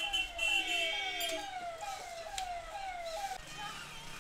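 Siren-like electronic tone falling in pitch over and over, a little more than twice a second, which stops about three and a half seconds in; a steady higher tone rings with it through the first second or so. A single sharp click comes about two and a half seconds in.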